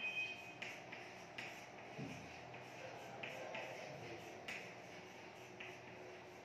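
Chalk writing on a chalkboard: short scratchy strokes and taps at an uneven pace, with a brief high squeak of the chalk right at the start.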